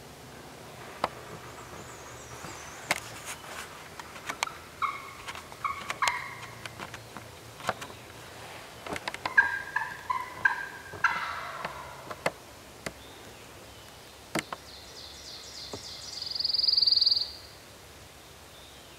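Turkey yelps in two short series of stepped, two-pitched notes, among scattered sharp clicks. A loud, high, rapid trill comes near the end.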